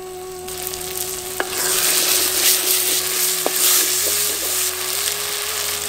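Chopped tomatoes and small onions sizzling in oil in an earthen clay pot while a wooden spoon stirs them. The sizzling starts about half a second in and grows louder about a second and a half in.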